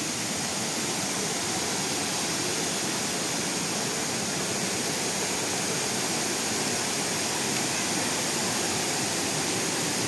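Waterfall and the water below it rushing over rock slabs in a steady, unbroken wash of noise.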